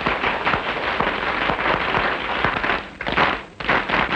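Crowd applauding, a dense crackle of hand claps that about three seconds in turns into slower rhythmic clapping in unison.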